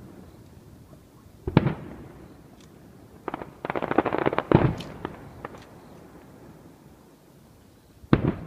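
Aerial fireworks bursting: three separate booms, with a quick string of many small crackling pops just before the loudest boom in the middle.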